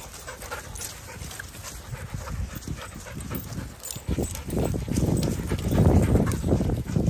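Several dogs playing close around the microphone: panting and scuffling on grass. About four and a half seconds in, a louder, rough stretch of close dog noise sets in and lasts until near the end.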